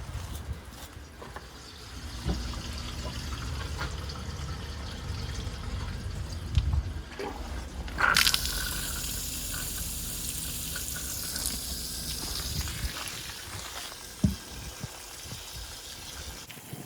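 Water from a supply hose rushing into a water softener tank during its first fill and flush. About 8 seconds in, the flow turns louder and hissier, and there is a short knock near the end.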